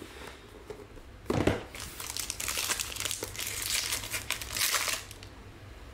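Wrapper of a trading card pack crinkling and tearing as it is pulled open by hand, for about three seconds, stopping near the end. A dull knock about a second and a half in is the loudest sound.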